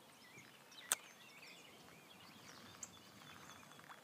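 Faint bird chirps over quiet outdoor ambience, with one sharp click about a second in.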